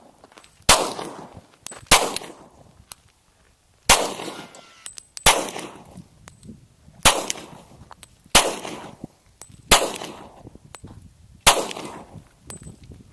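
A Glock 22 .40-caliber pistol fired eight times in slow succession, one shot every one to two seconds, each report trailing off in an echo. Faint light clicks sound between some of the shots.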